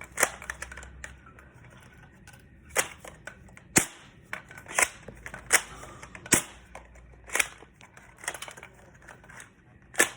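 A cheap toy AK-style airsoft gun firing single shots: about nine sharp snaps, one just after the start, then roughly one a second after a pause. The gun ejects a shell with every shot.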